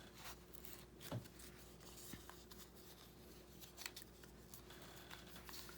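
Faint rustling of paper and light clicks and taps from paper and small craft tools being handled, in scattered short bursts over a low steady background hum.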